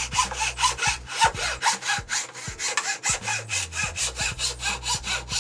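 Hand saw cutting through a strip of wood, with quick, even back-and-forth strokes, about four or five a second.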